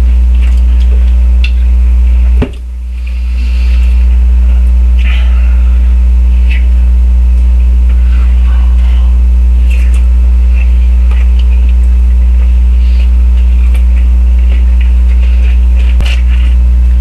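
Loud, steady electrical mains hum with a few overtones above it, dropping sharply about two and a half seconds in and swelling back over the next second or so. Faint scattered clicks and light rustles sit above it.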